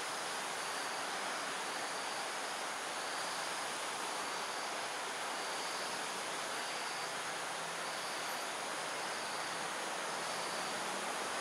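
Steady tropical dusk ambience: a constant, even rushing hiss with a thin high insect drone over it and a faint high pulse about every two seconds. No owl call is heard.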